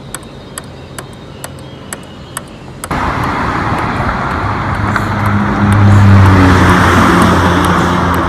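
Table tennis ball clicking off paddles and a small table in a rally, about three hits a second. Near three seconds in this gives way to louder road traffic noise with a vehicle engine's low hum, which swells about halfway through, with faint ball clicks under it.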